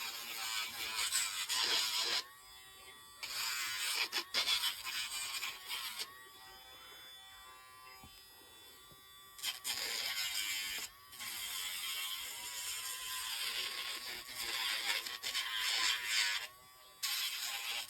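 Casfuy electric dog nail grinder running with a steady motor whine, its sanding drum rasping against the dog's nails in stretches of a few seconds, with pauses where only the motor hum is left.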